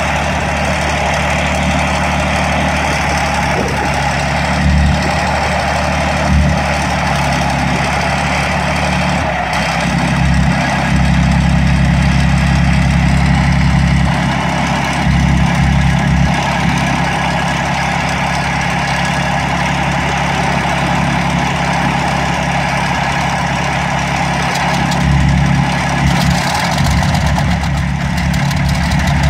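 The Rolls-Royce Merlin V12 piston engines of a de Havilland Mosquito running at idle during a ground engine test run: a steady, loud low drone that swells slightly around ten seconds in.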